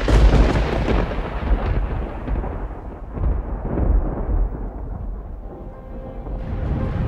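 Thunderclap sound effect from a stage show's soundtrack: a sudden loud crack, then a rolling rumble that swells and fades over several seconds. Dark music starts to come in near the end.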